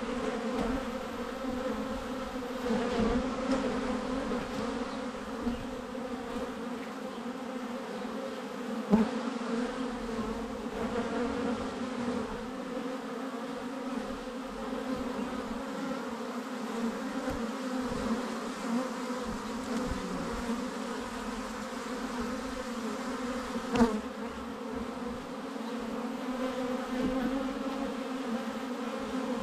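Honeybees buzzing in front of the hive entrance during orientation flights: a steady, low, many-winged hum. Two brief sharp taps cut through it, about nine seconds in and again near the end.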